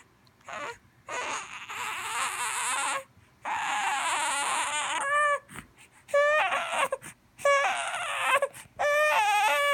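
A young infant crying. There are long wails, the first ones harsh and raspy, the later ones clearer, rising and falling in pitch, with short breaks for breath between them.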